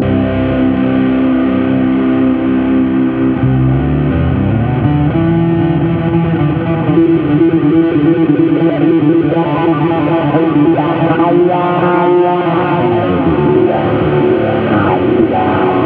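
Fender Japan Boxer Series Jazz Bass Special reissue, an electric bass with a Precision body and Jazz neck, played fingerstyle on its own. A low note rings for the first four seconds or so, then the player moves into a line of higher, ringing notes.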